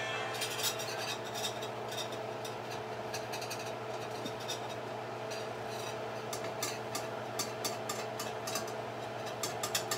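A wire whisk beating pancake batter in a stainless steel bowl: quick, irregular metal-on-metal clinks and scrapes, busiest near the end, over a steady low hum.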